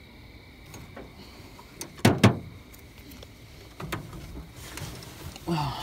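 Knocks and thumps against the metal of an aluminum boat: two sharp, loud knocks close together about two seconds in, a lighter one near four seconds.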